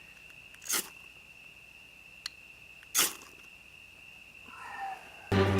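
Steady high-pitched trill of crickets, with two short, sharp scraping hisses about two seconds apart. Background music comes in loudly near the end.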